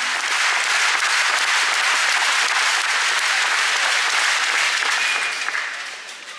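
Arena crowd applauding, with many hands clapping together, dying away over the last second or so.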